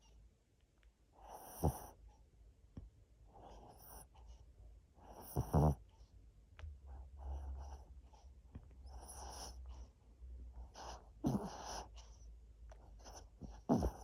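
A Chihuahua–poodle mix dog snoring in its sleep: a noisy breath about every two seconds, some of them ending in a louder low rasp.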